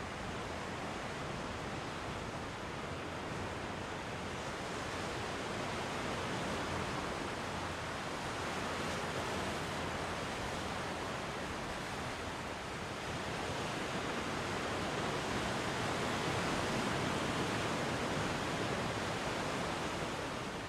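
Sea surf washing ashore: a steady rushing that swells and eases slowly.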